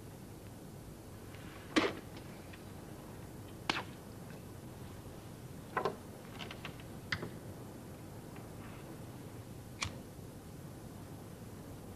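About half a dozen separate sharp clicks and taps from a cigar and lighter being handled at a desk, over a steady hiss.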